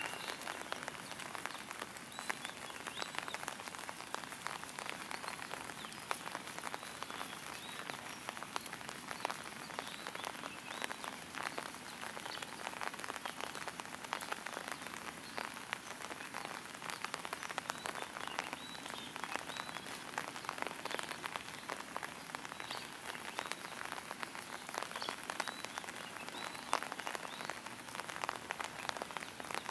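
Steady rain: a dense, even patter of countless drops.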